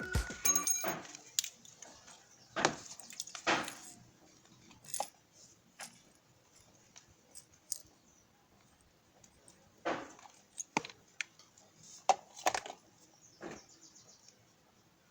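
Irregular clinks and knocks of small hard parts and tools being handled and set down, with louder knocks a few seconds in and again around the tenth and twelfth seconds.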